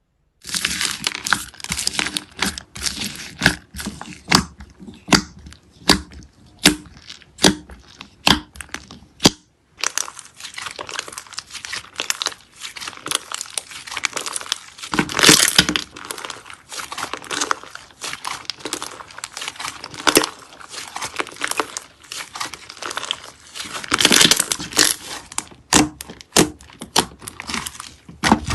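Slime being squeezed, poked and stretched by hand, giving dense crackling with many sharp pops and clicks. It stops briefly about a third of the way in, then starts again.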